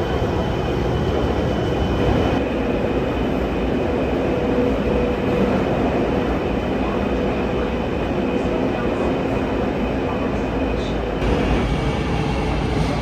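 Taipei Metro Bannan line train running, heard from inside the car: a steady rumble of wheels and running gear with a faint steady whine.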